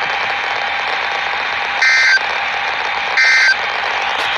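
NOAA Weather Radio EAS/SAME digital data bursts: two short buzzy warbling blasts about a second apart, the end-of-message code that closes the Required Weekly Test. They play over the steady hiss of the radio's reception.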